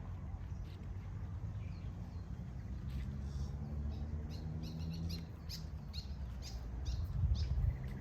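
Birds chirping with short, quickly repeated high notes, mostly in the second half, over a steady low rumble.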